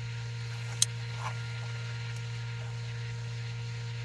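Steady low hum with a single sharp click a little under a second in.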